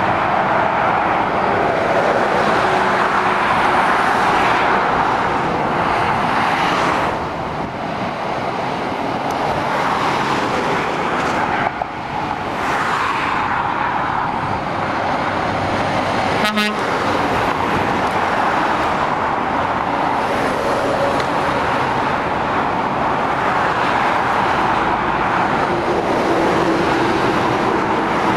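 Steady dual-carriageway traffic: heavy lorries and cars pass below one after another, their tyre and engine noise swelling and easing with each vehicle. There is one short sharp click or rattle about halfway through.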